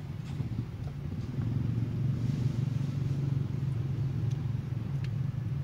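Steady low rumble of a motor vehicle engine running nearby, growing louder about two seconds in and easing off toward the end.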